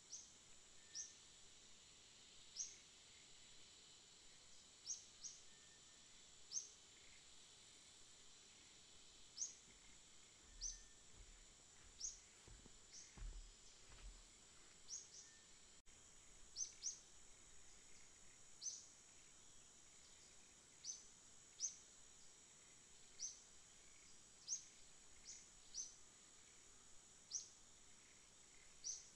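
A small bird's short, high chirps, each a quick downward sweep, repeating irregularly every second or two over a faint, steady high hiss.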